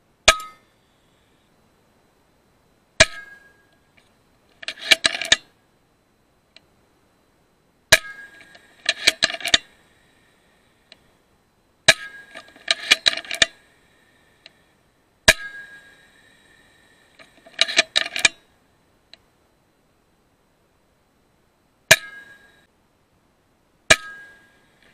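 A .22 FX Impact M3 PCP air rifle firing slugs: seven sharp shots, each with a brief metallic ring. Four of them are followed a second or two later by a quick rattle of clicks as the side lever is cycled to load the next slug.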